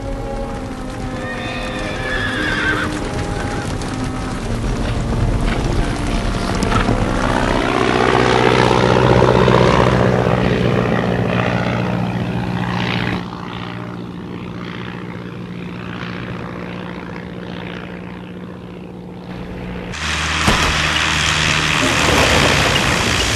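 Horses whinnying over orchestral-style film music, which builds to a peak about ten seconds in and drops suddenly about thirteen seconds in. Near the end a biplane's engine and propeller come in loudly as it lands.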